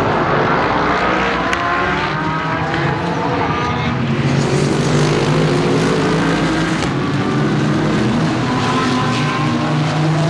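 A pack of GTD-class GT3 race cars running past together, many engine notes overlapping, several rising in pitch as the cars accelerate.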